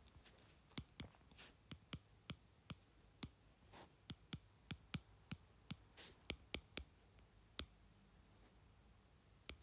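Stylus tip tapping and sliding on an iPad's glass screen during handwriting: a faint string of sharp, irregular clicks, about two a second, with a few short soft strokes in between.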